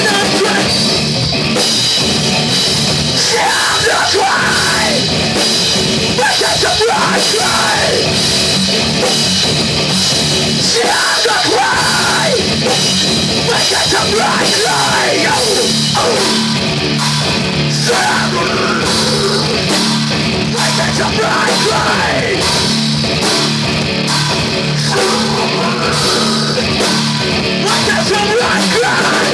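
A rock band playing live in a small room: electric guitar and drum kit with cymbals, loud and continuous, with a singer singing into a microphone over them.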